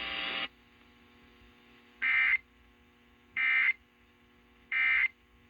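Emergency Alert System end-of-message signal: three short, identical bursts of SAME digital data tones, each under half a second and about 1.4 s apart, marking the end of the broadcast warning. A hiss cuts off about half a second in.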